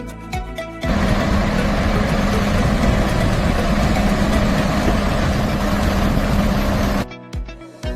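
A loud, steady machine or engine running with a low hum, starting about a second in and cutting off abruptly about a second before the end.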